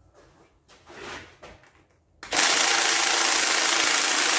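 Cordless electric ratchet running steadily, starting about two seconds in, spinning a 14 mm water pump bolt out; a few faint knocks of handling come before it.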